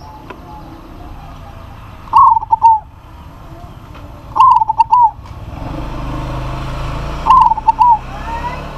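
Zebra dove (perkutut) calling: three calls about two and a half seconds apart, each a quick rolling run of notes followed by a short separate note.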